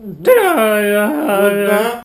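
A man's voice singing one long, loud drawn-out note. It swoops down and back up at the start, then holds low, with a brief step up about halfway through.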